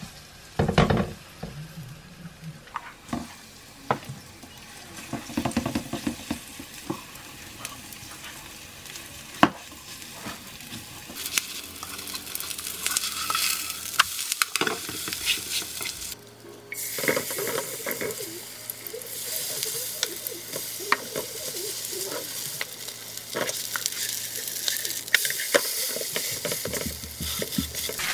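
Chive-and-shrimp pancake batter sizzling in oil in a nonstick frying pan, with a spatula tapping and scraping against the pan as the batter is spread and turned. The sizzle starts sparse and grows denser and louder partway through.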